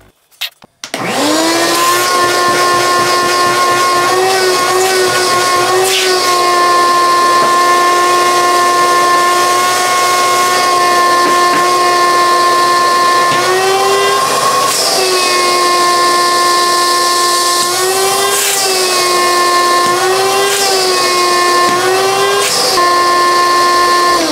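Wet/dry shop vac switched on, its motor spinning up within a second and then running with a steady high whine, the pitch wavering briefly several times. It is switched off near the end and the whine starts to fall away.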